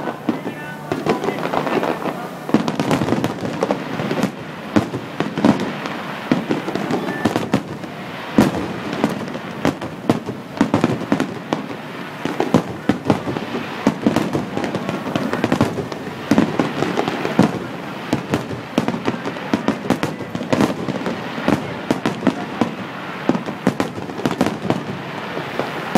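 Aerial firework shells bursting in rapid succession, a dense barrage of overlapping bangs and crackles from a fireworks finale.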